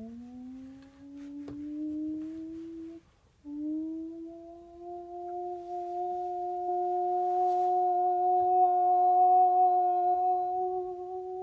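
A woman's voice sustaining one wordless tone sung into another person's chest: it slides slowly upward at first, breaks off for a breath about three seconds in, then holds steady at a single pitch and grows louder. It is vocal sound scanning, a search for a tone that resonates in the listener's chest.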